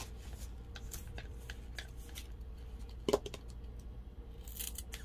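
Plastic glitter bottle being opened by hand: the screw cap twisted off and the sealed top picked at, giving scattered small clicks and scratches, one louder knock about three seconds in and a short rustle near the end.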